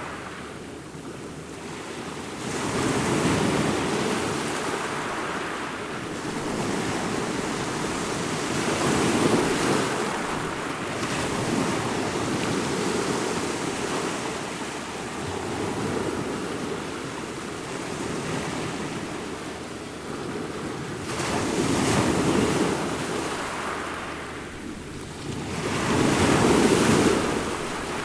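Ocean waves breaking and washing in, a continuous rush of surf that swells and falls back every few seconds, with bigger breakers about a third of the way in and near the end.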